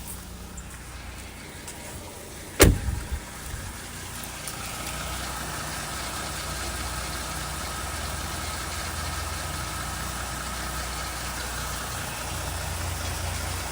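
2019 Dodge Durango engine idling hot after about 20 minutes of driving, with a slight rattling that only shows up once it has been driven a while. A single sharp knock comes about two and a half seconds in, and the engine sound grows a little louder after it.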